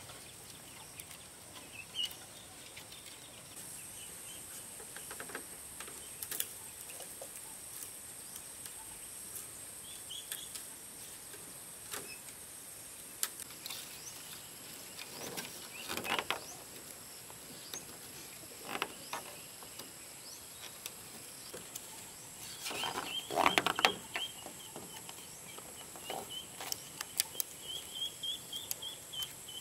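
Rural outdoor ambience: insects keep up a steady high-pitched drone, over scattered knocks, clicks and rustling handling sounds. The handling noise is loudest in a burst about halfway through and again about two-thirds through. A high chirping call repeats through the last third.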